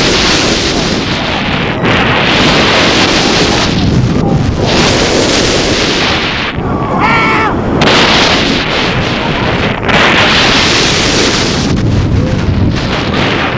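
Wind rushing loudly over a head-mounted camera microphone as a roller coaster train runs at speed, swelling and easing in several long gusts, with a brief wavering high tone about seven seconds in. The wind falls away right at the end.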